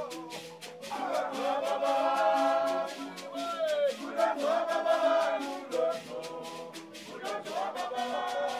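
Music with sung voices over a steady, quick percussion beat.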